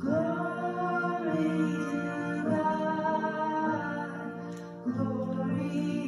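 Woman singing a slow Christmas hymn into a handheld microphone, holding long sustained notes, with a short break near the end, over a quiet musical accompaniment.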